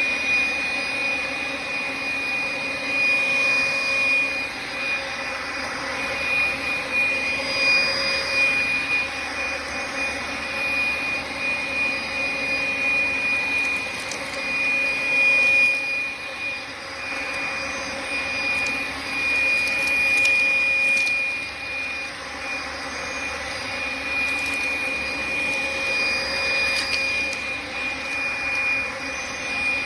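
Makita XLC02 18V cordless compact stick vacuum running at full speed: a steady high-pitched whine over a rushing airflow, picking up dog hair and flaxseed chips from the floor, with a few faint clicks.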